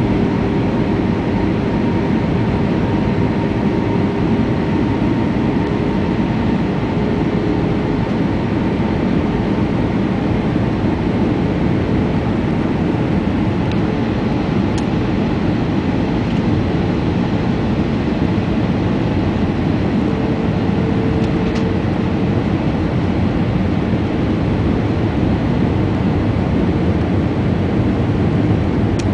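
Steady cabin noise of an Airbus A320-family airliner on approach: jet engines and rushing air heard from inside the cabin. A faint engine hum runs through it and rises slightly in pitch about twenty seconds in.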